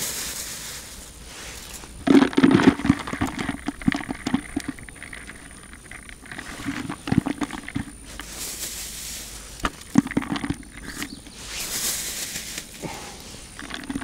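Groundbait for feeder fishing being prepared by hand: irregular rustling, crunching and small knocks, loudest a couple of seconds in, with two brief hissing stretches later on.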